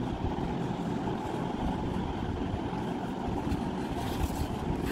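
Steady low rumbling background noise, with faint rustling and a few soft crackles near the end as a square of paper is folded and creased by hand.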